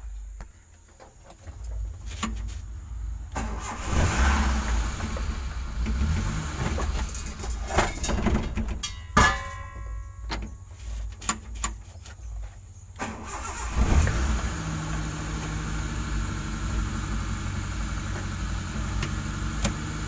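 An old car's engine is cranked on the starter in several uneven tries. It catches about two-thirds of the way in and settles into a steady idle.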